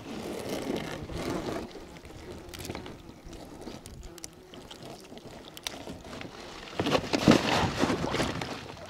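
Water sloshing and splashing against the side of an inflatable boat as a gill net holding a trout is worked at the water's edge, with a louder splash about seven seconds in.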